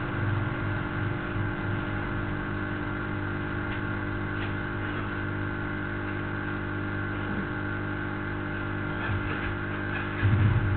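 Steady background hum made of several fixed tones over a low drone, with a brief louder low rumble near the end.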